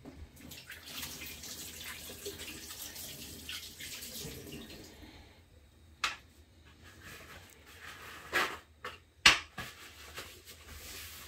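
Kitchen tap running while hands are washed under it for about five seconds, then the water stops and three sharp knocks follow.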